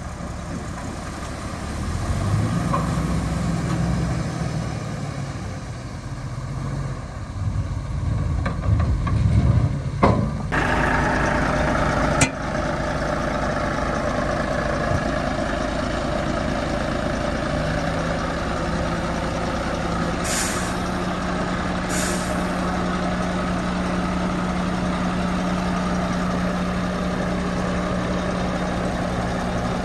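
Heavy diesel earthmoving machinery running. The engine's pitch varies unevenly for the first ten seconds, with two sharp knocks around ten and twelve seconds in, and then it runs steadily. Two short hisses come a couple of seconds apart, about twenty seconds in.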